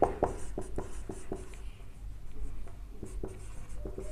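Marker pen writing on a whiteboard: a run of short, faint strokes and taps as the words are written.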